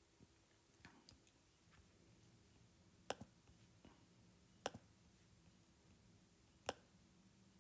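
A few sharp stylus taps on a tablet screen, the loudest about three, four and a half, and six and a half seconds in, some of them double taps, over near silence.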